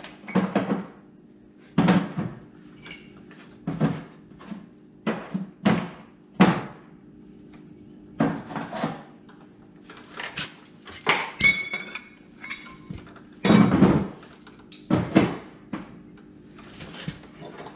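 Steel hand tools being put away: a dozen or so irregular metal clanks and knocks as wrenches and sockets are set down and packed, a couple of them ringing briefly about two-thirds of the way through, with the loudest clatter near the end.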